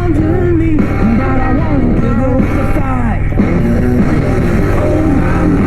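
Bluesy rock song with singing and guitar, played near full volume through a Harley Road Glide's Soundz Customz Iron 65 motorcycle speakers and heard from inside a full-face helmet with the visor closed, over a steady low rumble.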